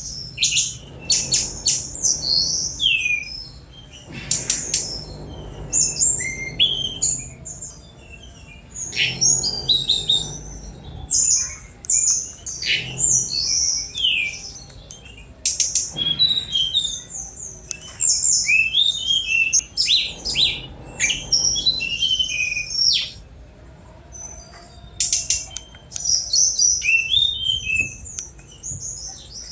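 Tledekan gunung flycatcher singing: fast, high-pitched phrases of chattering notes and quick sweeping whistles in long bursts, with short pauses between them.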